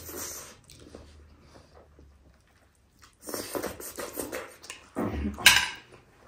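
Close-up eating sounds: food being chewed and bitten in the mouth, with a stretch of dense crunchy chewing midway and a short louder burst about five seconds in.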